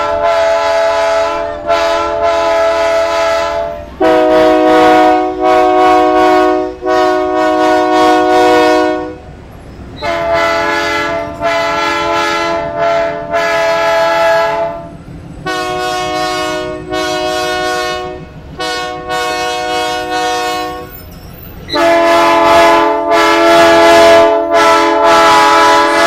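Diesel locomotive's multi-chime air horn sounding a long run of sustained blasts, mostly in pairs, each about two to three seconds long, over the low rumble of the passing train.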